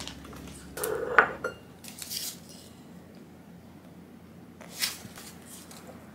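Plastic takeout sushi trays knocking and clacking as they are handled and held up: a cluster of knocks about a second in, another near two seconds, and a single knock near five seconds, with quiet between.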